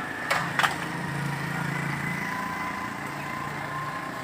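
A motorcycle engine running steadily close by with street noise. Two sharp knocks come in the first second.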